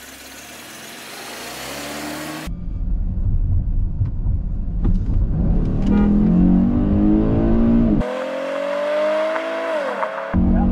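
A 2012 Chevrolet Camaro's engine accelerating hard under full throttle. It gets much louder a couple of seconds in, and its pitch climbs steadily, then drops suddenly at upshifts about eight and ten seconds in.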